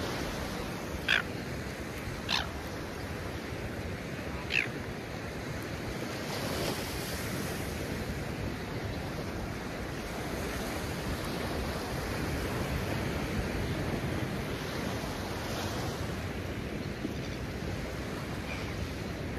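Ocean surf breaking steadily on the beach, with wind. A few short, high calls slide down in pitch in the first five seconds.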